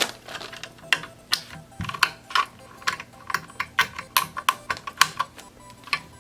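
A run of sharp, irregular clicks, about two or three a second, from fastening the replacement power board back into an Insignia LCD TV, with screws being driven in.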